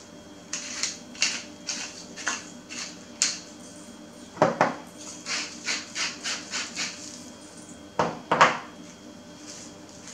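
Pepper grinder being twisted over raw pork, a quick series of short crunchy grinding strokes, about three a second, in two runs. A couple of louder knocks fall between and after the runs.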